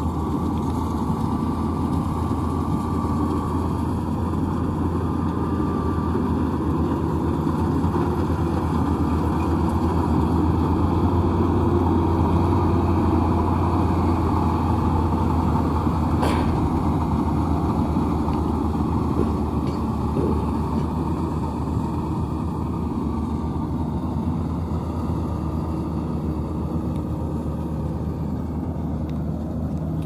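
Maxxi NDR85 Turbo Matic combine harvester running while it harvests rice, its engine and threshing machinery a continuous steady drone. It grows louder as the machine passes close, peaking about halfway through, then eases off as it moves away.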